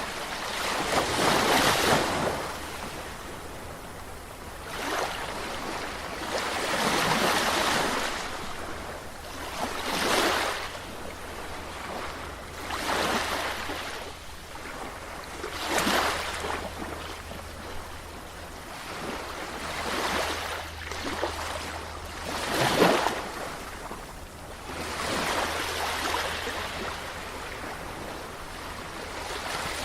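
Sea waves washing in and breaking, surging and ebbing about every two to three seconds, some surges sharper and louder than others.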